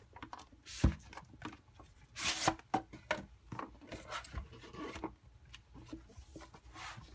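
Cardboard packaging being handled: a rigid box sliding out of its paper sleeve, rubbing and scraping, with scattered small taps and a sharp knock about a second in.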